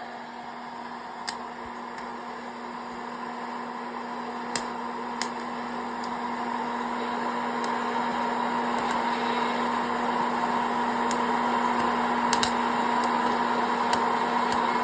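Hot-air popcorn popper running: a steady blower whir with a constant hum, slowly growing louder, with a few sharp pops of kernels bursting scattered through it.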